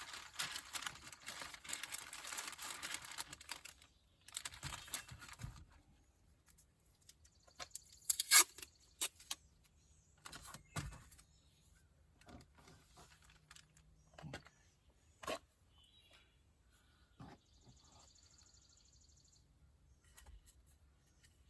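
Masking tape pulled off its roll in a long rasping stretch lasting about four seconds, then a shorter pull. After that come scattered clicks, taps and handling noises, the sharpest about eight seconds in.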